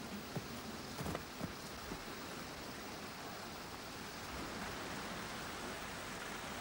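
A few soft footfalls of someone running on grass in the first two seconds, over a steady rushing outdoor hiss.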